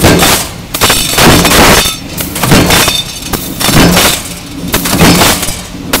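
Sheet-metal stamping press with a multi-station die cycling, each stroke a loud metallic crash and clatter, repeating about once every second and a bit.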